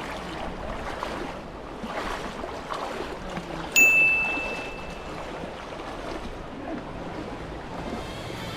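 River water rushing steadily past the bank. About four seconds in, a sudden sharp high ping rings out and fades over about a second.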